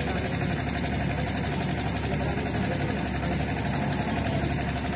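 A steady mechanical drone like an idling engine, with a fast, even pulse.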